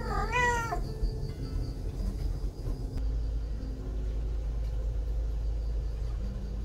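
A young cat meows once at the very start, a short call that rises and falls in pitch. A steady low rumble fills the rest.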